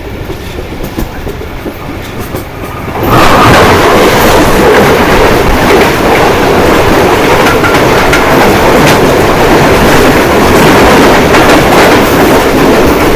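Train running on the rails, then about three seconds in an oncoming express train bursts past at high speed on the adjacent track. Its carriages make a loud, steady rush of wheel and wind noise for about ten seconds.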